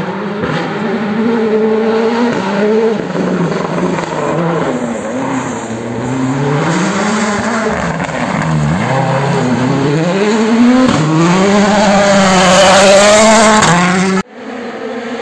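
Ford Fiesta WRC rally car's turbocharged four-cylinder engine driving hard on a gravel stage. It revs up and down through the gears, with short dips as the driver lifts off, and grows louder as the car comes past close by. The sound cuts off abruptly near the end.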